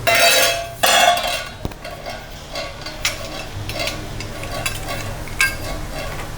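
Food hitting a hot pan with two loud sizzling bursts in the first second and a half, followed by stirring: repeated scrapes and light clinks of a utensil against the pan.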